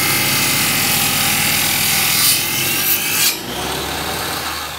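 Table saw blade cutting through a small block of wood, a loud steady sawing noise that stops suddenly about three seconds in as the cut finishes. The saw then keeps running freely with a quieter hum.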